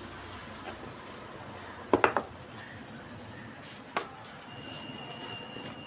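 Metal kitchen pots and utensils knocking and clinking on the stove. There is a quick double clank about two seconds in and a single clank about four seconds in, over a faint steady hiss.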